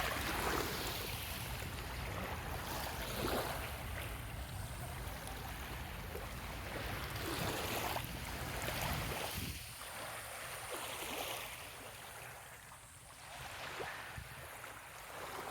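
Small waves washing in at the shore, swelling and falling back every few seconds, with wind rumbling on the microphone until about two-thirds of the way through.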